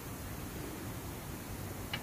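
Steady background hiss with one light click near the end, as small bolts for the transmission oil pan are handled in the hand.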